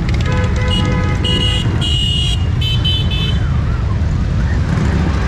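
Several motorcycle engines running steadily as the bikes ride slowly past. Horns sound a series of short and longer beeps at different pitches in the first three seconds.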